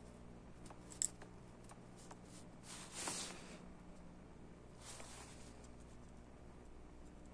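Quiet handling noise from soldering work on the speaker's wiring: a few small clicks and two brief soft hisses over a low steady hum.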